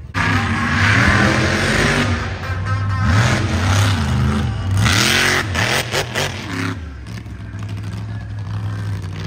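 Mega truck's big engine revving hard, its pitch swinging up and down several times.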